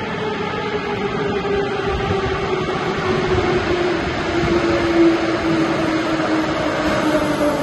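Moscow metro train approaching the platform through the tunnel: a rumble that grows louder, with a motor whine slowly falling in pitch as the train slows.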